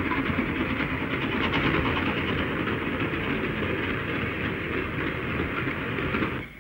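A steam-hauled goods train of covered vans passing at speed: steady wheel and rail running noise that cuts off suddenly near the end.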